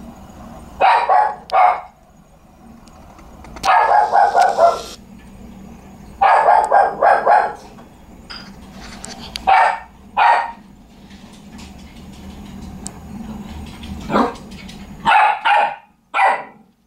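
A dog barking in short runs of a few barks at a time, with pauses of one to several seconds between the runs, over a faint steady low hum.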